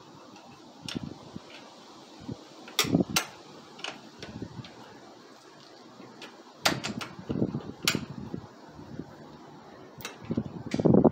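Sharp metal clicks and clinks of hand work on a motorcycle's rear wheel axle and brake arm, a handful spread through, with bouts of low rustling handling noise, busiest in the second half.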